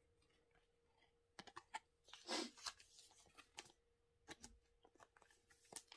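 Faint handling sounds of trading cards and a clear plastic card sleeve: scattered light clicks and taps, with a brief rustle about two seconds in.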